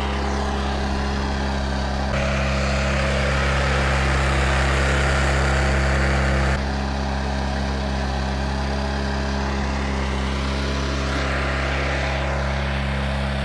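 Small walk-behind trencher's engine running steadily while the machine digs a narrow trench in field soil. The sound shifts abruptly about two seconds in and again about halfway through.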